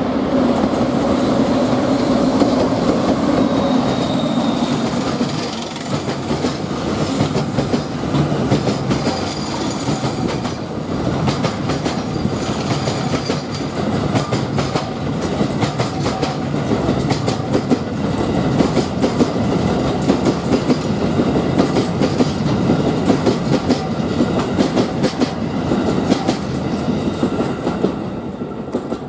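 Freight train passing at speed: a red EF510 electric locomotive goes by with a steady hum, then a long rake of Hoki 1100 cement hopper wagons follows, its wheels clattering rhythmically over the rail joints. The clatter fades as the last wagons pass near the end.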